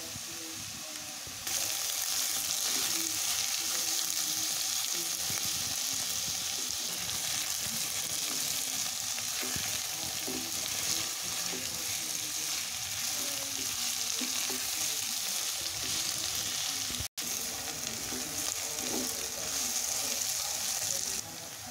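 Shredded potatoes, onions and tomato wedges sizzling in hot oil in a non-stick pan while a spatula stirs and scrapes through them, frying the tomatoes soft. The sizzle gets louder about a second and a half in.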